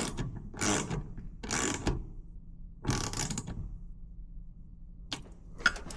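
Ratchet wrench clicking through several short strokes, about one a second, then a pause and two sharp clicks near the end.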